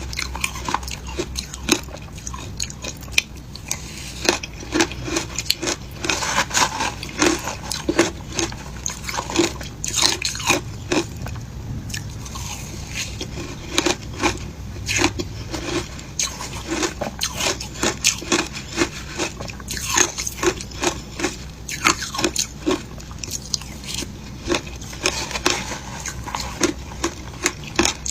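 Someone biting and chewing passion fruit shaved ice, with many irregular crisp crunches, several a second, throughout.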